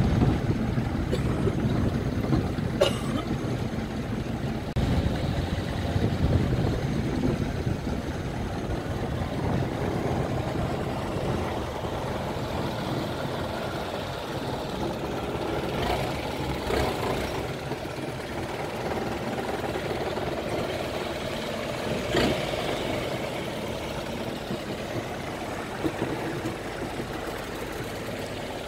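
Engine of a wooden longtail boat running steadily, low and heavy, loud at first and slowly fading. A few short knocks stand out here and there.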